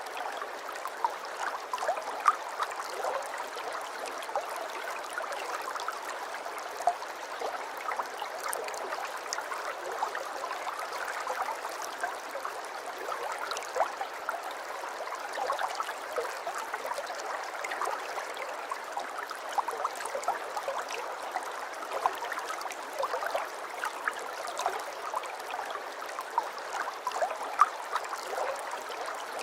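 Aquarium water trickling and bubbling steadily, with many small irregular pops and splashes.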